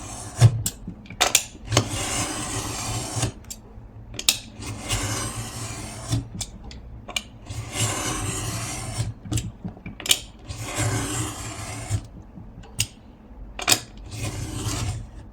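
A sharp blade drawn again and again through a thick stack of paper and cardstock pages, trimming the edge: about six rasping cutting strokes, with short clicks between them as the blade is lifted and set down.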